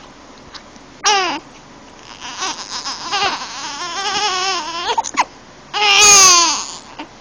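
A one-month-old baby fussing: a short falling cry about a second in, then a long wavering whimper, then a louder falling cry near the end.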